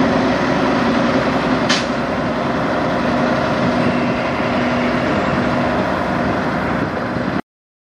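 A Kenworth semi truck's diesel engine running steadily as the tractor-trailer pulls slowly away, with a brief sharp hiss about two seconds in. The sound cuts off abruptly near the end.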